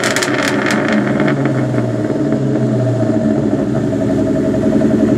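Ford Mustang Cobra's supercharged 4.6-litre DOHC V8, with a catless exhaust and bullet mufflers, settling to a loud steady idle right after a rev. A few sharp crackles come in the first second.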